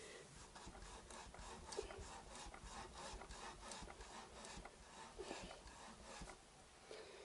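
Faint rubbing and light scraping, a string of short scrapes about three a second, from hands working on a motorcycle front fork's chrome stanchion tube.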